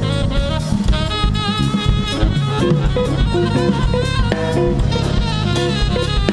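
Live jazz band playing: a tenor saxophone carries a wavering melodic line over a steady groove of drum kit, electric bass and congas.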